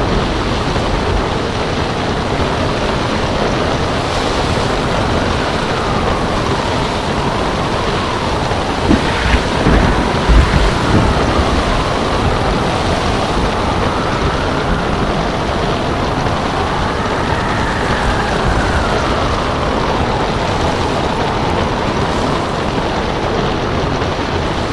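Ocean surf rushing steadily, with a faint wavering whistle of wind over it; about nine seconds in the surf surges louder for a couple of seconds with low thuds, as a wave breaks.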